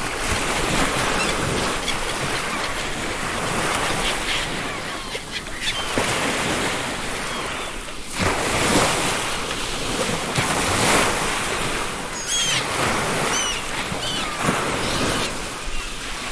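Ocean surf breaking and washing up a beach, surging every couple of seconds. A few short gull calls come in near the end.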